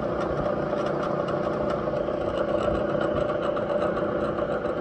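Bridgeport milling machine running steadily, its cutter skimming the face of a cylinder head's valve-spring guide boss to clean off excess metal.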